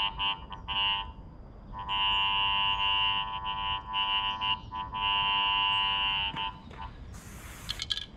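Cable avoidance tool (CAT) locator giving its electronic detection tone, a steady pitched whine that drops out and comes back as the tool is swept over a buried electric cable, with one long unbroken run in the middle. Near the end, a short hiss of marker spray paint on the ground.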